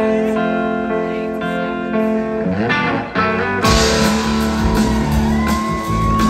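Live rock band music: held guitar and keyboard chords, then about three and a half seconds in the full band comes in with drums and a gliding electric guitar lead line.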